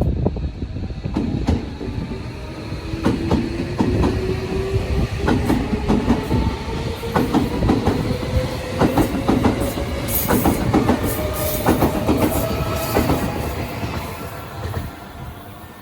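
Tobu Railway electric train pulling away and accelerating: its traction motor whine rises steadily in pitch while the wheels clack over rail joints. The sound fades near the end.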